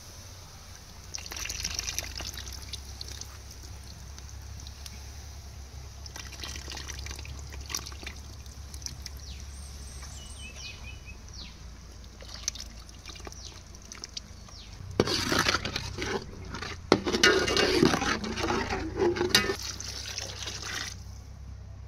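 Liquid trickling and sloshing, with scattered clicks and knocks. It grows louder and busier for several seconds near the end.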